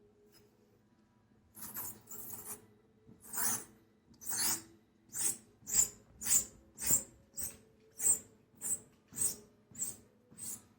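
A dog making a rhythmic series of short, breathy huffs, starting about a second and a half in and settling into a steady beat of nearly two a second.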